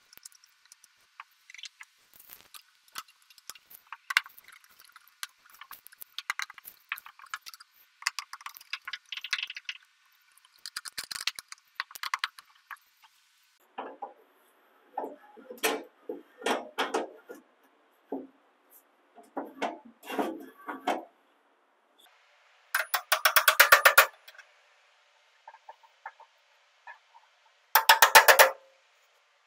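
Steel parts of a tool chest being reassembled by hand: scattered metal clinks, taps and rattles as a drawer slide is fitted into the cabinet. Near the end come two bursts of rapid, evenly spaced clicking, each about a second long.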